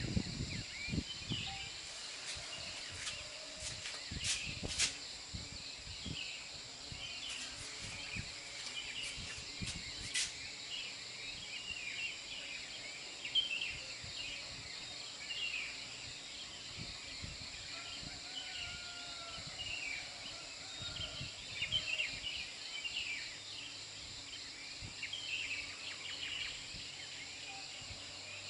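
Outdoor ambience of many small birds chirping over a steady high-pitched insect drone, with a few low bumps and clicks.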